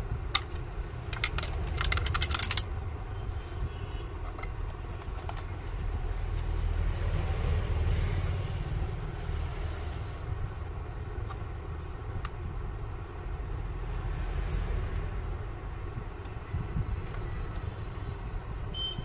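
Small metal and plastic clicks and rattles as the terminal nut and plastic rear housing of an electric iron are handled, densest in the first couple of seconds with a few single clicks later, over a steady low background rumble.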